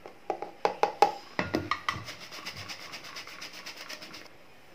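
Flour being sifted with a hand-operated flour sifter: a few irregular knocks as the flour is tipped in from a plastic measuring cup, then quick, even clicking and scraping as the sifter's agitator is worked over its wire mesh, stopping shortly before the end.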